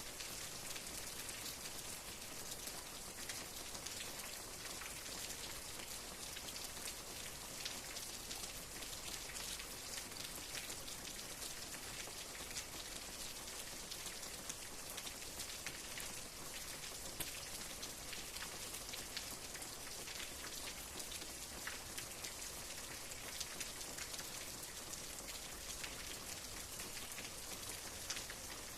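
Steady rain falling, a constant hiss with many small distinct drop ticks scattered through it.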